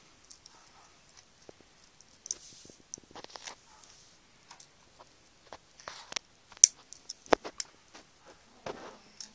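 Scattered light clicks and taps of small plastic model-kit parts being handled and set down, with a soft rustle early on and a few sharper clicks past the middle.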